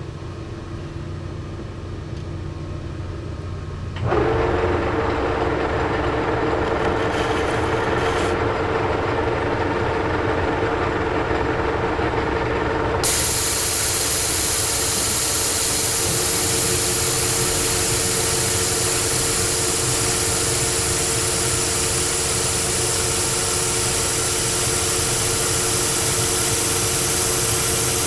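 Old Monarch lathe running steadily while turning a steel part, with a steady whine setting in about four seconds in and a loud, even hiss joining about halfway through and holding on.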